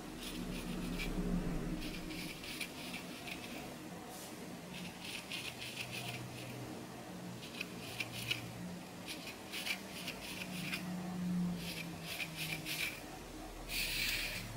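Fine-toothed lice comb scraping across the scalp through hair flecked with dandruff, in short repeated strokes that come in quick groups, the loudest group near the end. A faint low hum runs underneath.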